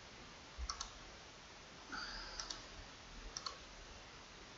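Faint computer mouse clicks: three quick pairs, each a button press and release, spread about a second apart, with a soft short noise just before the second pair.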